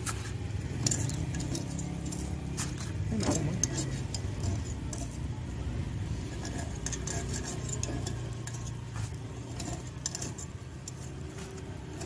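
Light metallic clicks and scrapes of a thin skewer working in a metal spider-web cookie mould, over a steady low hum.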